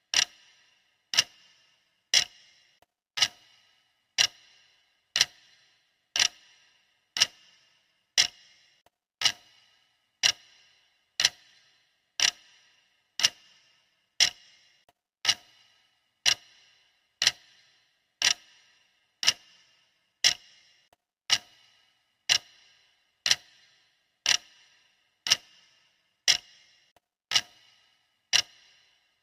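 Sharp clock ticking from a countdown timer, one tick a second at a steady, even pace. Each tick is crisp and dies away quickly.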